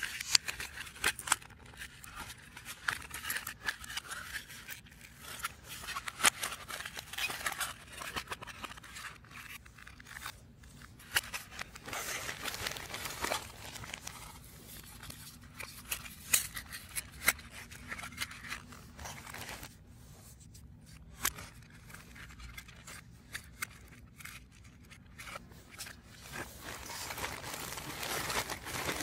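Hands assembling a 3D puzzle: irregular clicks, snaps and scrapes as the pieces are handled and fitted together.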